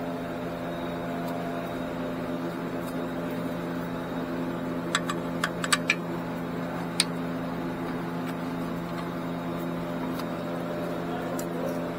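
A steady low hum, with a quick run of sharp clicks about five seconds in and one more a second later: hand tools and parts being handled during axle reinstallation.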